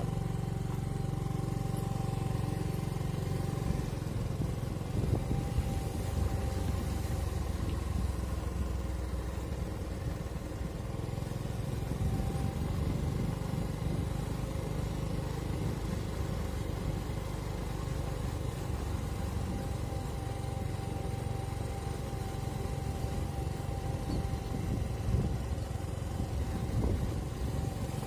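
Motorcycle engine running steadily with a low rumble.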